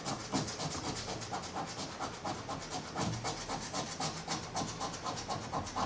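Coin scraping the latex coating off a paper scratch-off lottery ticket in quick back-and-forth strokes, several a second.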